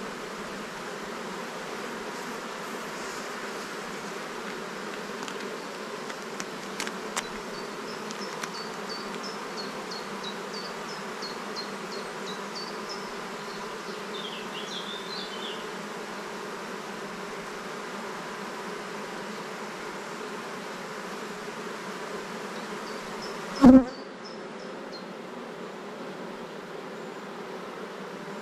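Steady buzzing of many honeybees around an open hive whose frames are being handled. A few faint high chirps sound in the first half, and a single loud knock comes a few seconds before the end.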